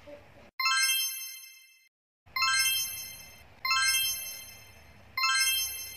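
A bright metallic chime struck four times, each ding sudden and then fading away over about a second.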